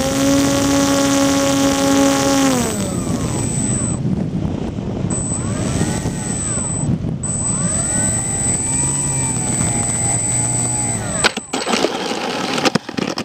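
Twin electric brushless motors with 10x6 propellers on a foam-board RC plane running at a steady high pitch, then throttled down about two and a half seconds in, after which their pitch rises and falls as the throttle varies. Near the end there is a series of knocks and scrapes as the plane touches down on asphalt.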